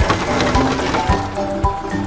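Cheerful background music with a melody over a steady beat, with a brief rush of noise at the start, likely a digging sound effect.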